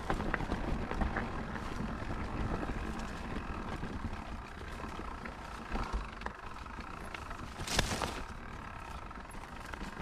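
Wind rushing over an action-camera microphone and the rumble of riding down a dirt trail, with small rattles throughout. A sharp clatter comes about eight seconds in.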